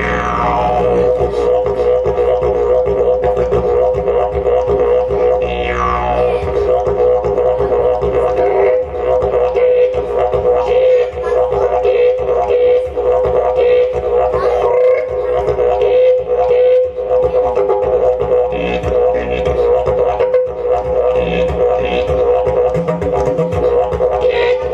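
Didgeridoo played solo: an unbroken low drone with rhythmic pulses in the upper tones, and overtones sweeping downward at the start and again about six seconds in.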